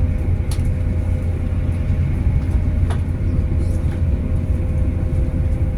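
Passenger train running, heard from inside the carriage: a steady low rumble with a faint constant tone above it and an occasional light click.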